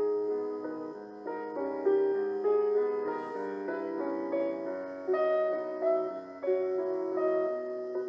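Piano music: notes and chords struck about every half second and left to ring.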